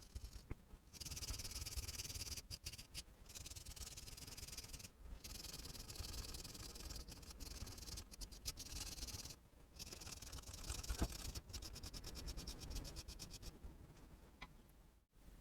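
Scraping and scrubbing at the screw heads on a motorcycle engine's casing, cleaning dirt out of the slots. It comes in runs of rapid scratchy strokes with short pauses between them.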